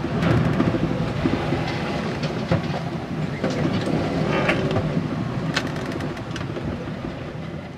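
Steady low rumble with scattered clicks and knocks, heard from inside a sailing yacht's cabin while under way. It fades out near the end.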